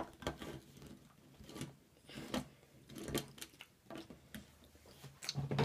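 Scattered light clicks and knocks of a Hot Wheels toy monster truck being handled and set down on a wooden tabletop, its plastic wheels and body tapping the wood.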